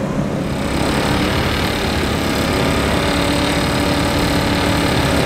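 Mercedes SLS AMG's 6.2-litre V8 idling steadily as the car creeps up to the start line, growing a little louder.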